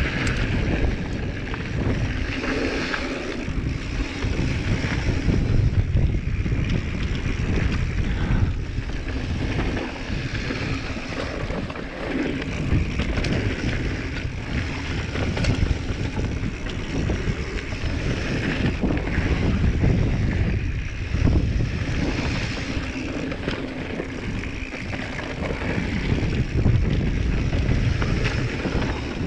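Giant Trance full-suspension mountain bike on a fast trail descent: wind rushing over the action camera's microphone, tyres rolling over dirt, and frequent knocks and clatter from the bike over rough ground.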